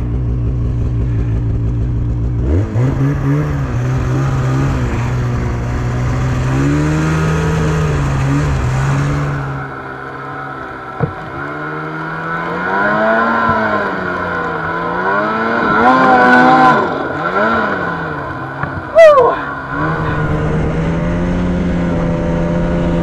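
Turbocharged Polaris 850 snowmobile engine running under way, its pitch rising and falling again and again with the throttle, swinging fastest in the middle. A brief loud high squeal rises and falls near the end.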